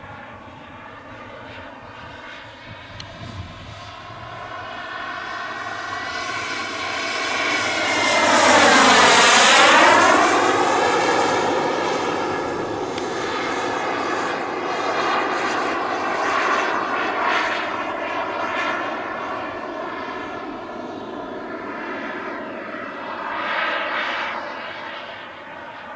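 Large 1:3 scale Messerschmitt P1110 model jet, driven by a Frank VRaptor unit, flying circuits at full sound. It makes a loud close pass about nine seconds in, its pitch sweeping down and back up, then a steady drone as it circles, swelling again on a second, lesser pass near the end.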